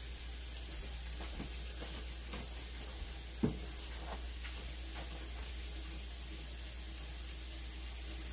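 Hot seafood boil in a foil tray faintly sizzling: a steady soft hiss with a few small pops and clicks scattered through, the loudest about three and a half seconds in.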